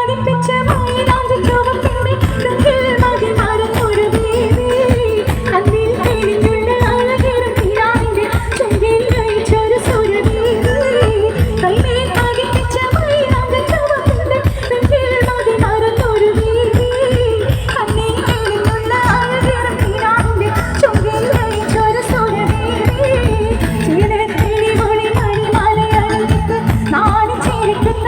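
Song with a sung melody over a fast, steady drum beat, played loud through a large stage PA sound system.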